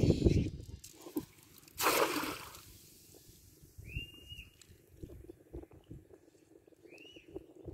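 A cast net swung and thrown, with low rustling at the start, then the net splashes onto the pond surface about two seconds in as a brief rushing splash. Later a bird gives two short, arched chirps.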